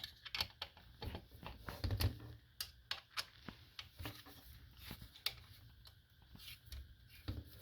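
Irregular light clicks and taps of an Allen (hex) wrench working the screws that hold a skid plate shield to a motorbike's steel skid plate, with a few soft knocks of handling.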